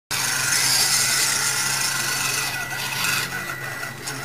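Electric motor and gear drive of a Losi mini RC rock crawler whirring as it climbs, with its tyres grinding over the rough course; loudest for the first three seconds, then easing off.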